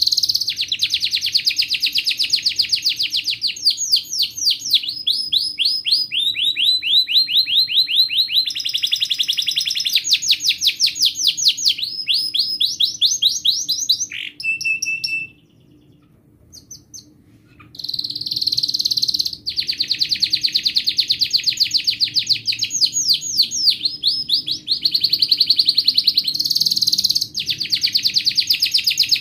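White domestic canary singing a long song of fast trills, each phrase a rapid run of repeated notes, switching from one phrase to the next every second or two. It breaks off for about two seconds around the middle and then resumes.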